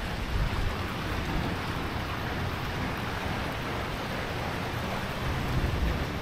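Steady splashing of a swimming pool's small fountain jets, with wind rumbling on the microphone.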